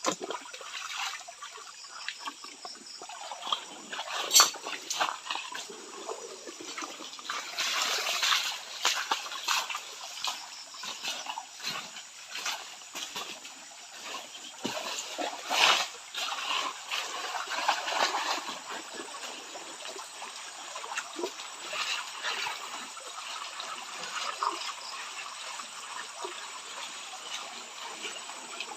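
Water trickling and splashing in a shallow stream, with frequent small clicks and splashes throughout, as in gold panning. The loudest splashes come about 4 seconds in and again about 16 seconds in.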